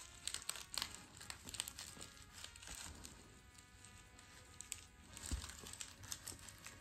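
Irregular rustling and crinkling as a knitted fabric sleeve is waved about and swatted by a playing cat, with soft music faintly underneath.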